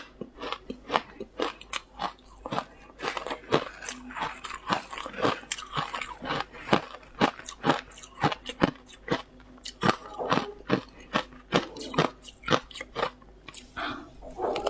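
A person biting and chewing matcha ice close to the microphone: crisp, irregular crunches of ice cracking between the teeth, a few a second.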